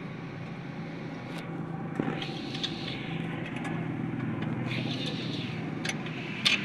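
Steady low hum of a car, with scattered metal clicks of a spanner turning a fitting on the rear brake drum and two short hisses; the loudest click comes near the end.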